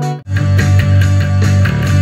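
Electric bass and electric guitar playing rock through amplifiers. They stop for a moment about a quarter second in, then come back in louder with a fast, driving rhythm.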